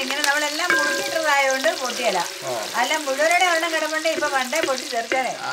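Chopped green chillies sizzling in hot oil in a large aluminium pan, stirred with a wooden spatula, being fried until their moisture cooks off. A person's voice talks over the sizzle.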